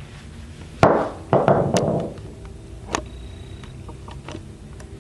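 Hammer blows knocking the copper windings off a microwave oven transformer's steel core: a quick run of four or five ringing metal strikes in the first two seconds, one more about three seconds in, then a few light clicks.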